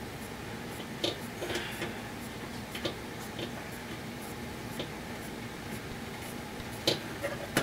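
Scattered small clicks and light scrapes of a metal spade connector being worked onto an oven bake element's terminal, a few sharper clicks about a second in and near the end, over a steady low hum.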